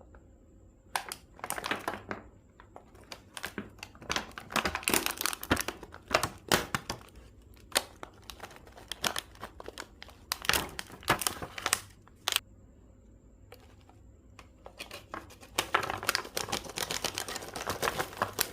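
Plastic chocolate-bar wrappers being torn open and crinkled by hand, in irregular bursts of crackling with short pauses.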